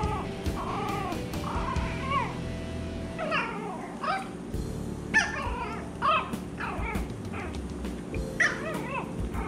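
Poodle puppies whining and yipping. A few soft whines come near the start, then louder high-pitched cries that fall in pitch, repeating every second or two.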